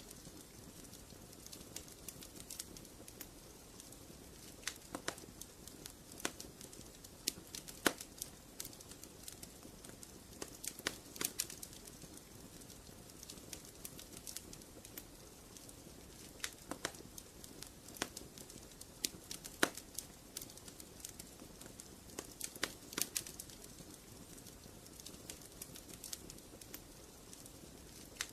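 Wood fire crackling in a fireplace: a low steady hiss with sharp irregular pops and snaps, some coming in quick clusters.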